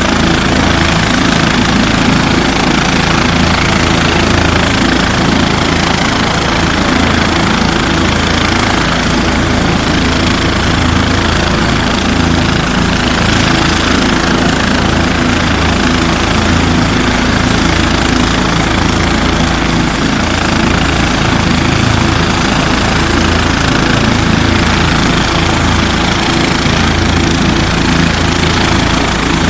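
Light turbine helicopter running on the ground before take-off, its main rotor turning at speed: a loud, steady rotor and engine noise with a low pulsing beat.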